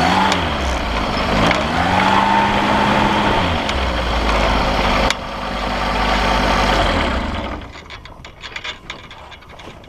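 Motorized hang glider's engine running with rushing air, its pitch rising and falling twice with the throttle. The engine sound drops away about three-quarters of the way in.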